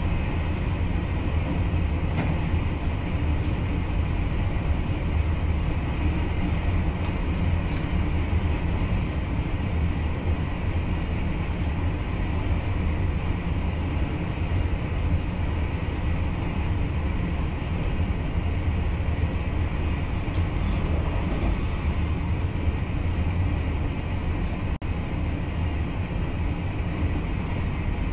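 Steady running noise of an NS VIRM double-deck electric train at speed, heard inside the driver's cab: a constant low rumble with no change in pace. It drops out for an instant near the end.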